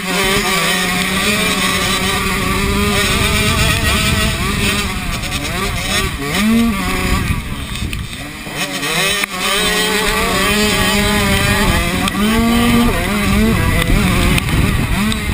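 Minicross motorcycle engine heard up close from the bike itself, running hard on the track. Its pitch holds for stretches and then climbs sharply as the throttle opens, once near the middle and again later on, over a steady rushing noise.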